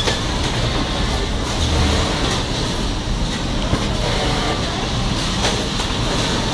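Garment-factory machinery running, including an automatic back-pocket ironing machine for jeans: a steady mechanical din with scattered clicks.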